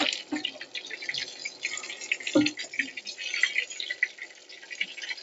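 Coated chicken drumsticks shallow-frying in hot oil in a pan, crackling and spitting constantly. A steel spoon knocks against the pan a couple of times, loudest about two and a half seconds in.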